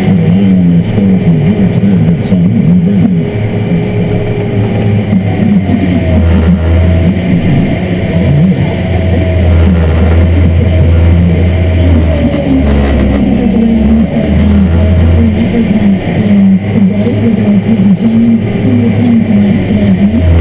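Farm tractor engine running steadily under load while towing dirt pans, heard from inside the cab. A fainter whine drifts up and down in pitch over it.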